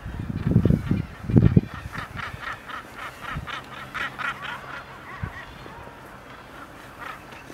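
Common guillemots calling at a breeding colony: a rapid run of harsh pulsed calls, about five a second, for around three seconds. Low wind buffeting on the microphone in the first second and a half.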